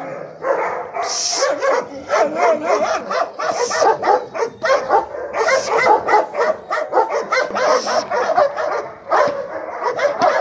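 German Shepherd female barking rapidly and repeatedly, several barks a second, at a person teasing her: a show of guarding aggression, called a bit of fierceness.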